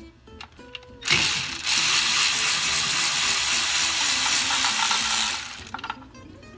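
Cordless electric ratchet running steadily for about four and a half seconds, starting about a second in, as it spins out an already-loosened main bearing cap bolt on a Ford Model A four-cylinder engine. A few light clicks of the tool being set on the bolt come before it.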